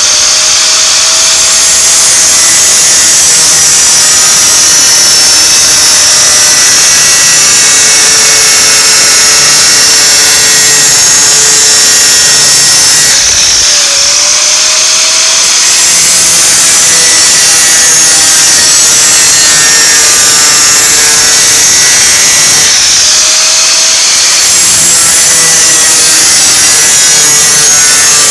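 Corded angle grinder with a thin cut-off wheel cutting through aluminum sheet, running loud and steady with a high whine. Twice, about halfway through and again near the end, the motor's pitch sags briefly and then picks back up.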